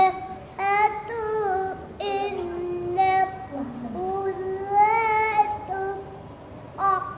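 A young boy chanting Quran recitation in melodic tajweed style. His voice holds long, wavering notes in short phrases, with brief pauses for breath between them.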